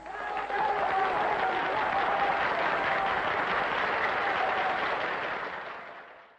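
Audience applauding on an old film soundtrack, steady at first, then fading out near the end.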